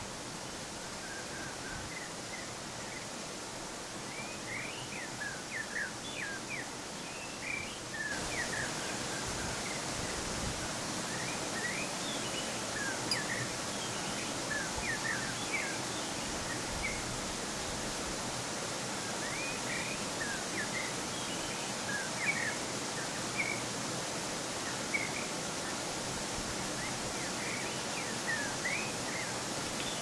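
Steady rushing of a waterfall, growing a little brighter about eight seconds in, with small birds chirping in quick clusters of short high notes throughout.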